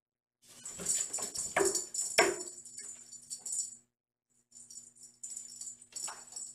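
A kitten batting a toy ball across the floor: a rattling, jingling clatter of quick knocks, loudest in the first few seconds, then again in shorter bursts near the end.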